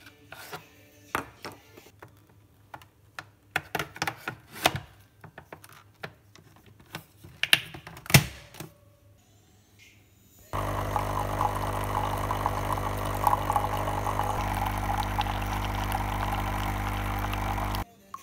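Clicks and knocks of a capsule being loaded and the machine being handled. Then, about ten seconds in, the pump of a Nescafé Dolce Gusto capsule coffee machine starts with a loud, steady buzzing hum as it brews, and stops suddenly about seven seconds later.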